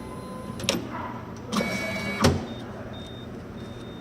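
Hitachi automatic passbook entry machine's mechanism running with a steady motor hum, several sharp clicks and a heavier clunk about two seconds in, then a faint thin tone.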